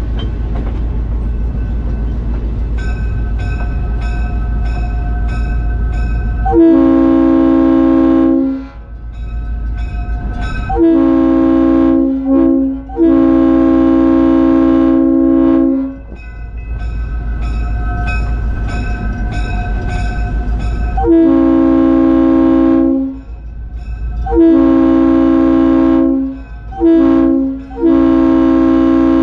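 Air horn of CF7 diesel locomotive No. 2600 sounding two rounds of loud chord blasts over the steady rumble of its EMD 567 prime mover. The second round is the long, long, short, long pattern used for a grade crossing. Between the rounds a bell rings with an even pulse.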